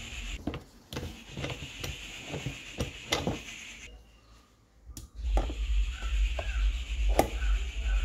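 Hands working on a washing machine's drive assembly: a run of light clicks and knocks as a nut is fitted on the plastic drive pulley. After a brief quiet gap, a steady low rumble with further knocks as the plastic drain hose is handled.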